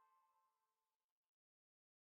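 Near silence: the faint tail of the outro music's last held chord dying away, then dead digital silence about halfway through.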